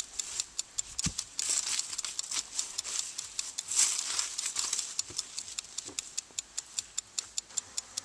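A fast, steady ticking, about four ticks a second, with two louder bursts of rustling from a beekeeper's suit as the wearer flails to get a honey bee out of his veil.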